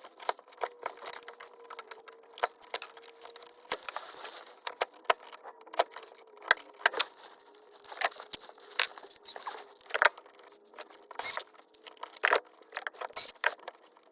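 Irregular sharp clicks and light metallic clinks of tools and electrical wire being handled, over a faint steady hum.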